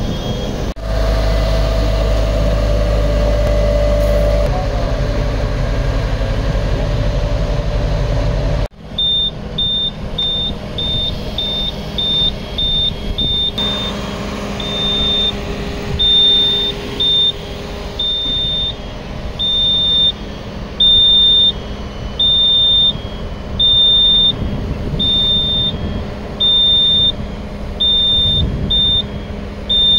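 Fire engines running with a loud steady drone. About nine seconds in the sound cuts to a lower engine hum under short, high, repeated beeps in an uneven rhythm, the warning beeper of the aerial ladder.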